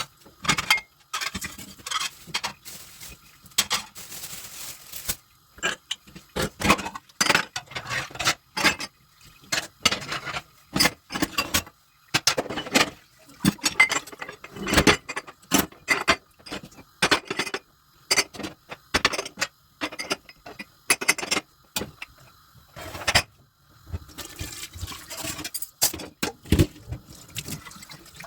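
Dishes, cutlery and pots being handled and knocked against each other in a kitchen sink, an irregular run of clinks and clatters. Tap water runs briefly a few seconds in and again near the end.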